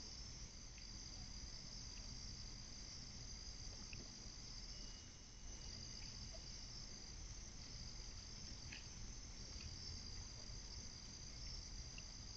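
Night insects chirping in a steady, high-pitched chorus, with a low, even background rumble beneath.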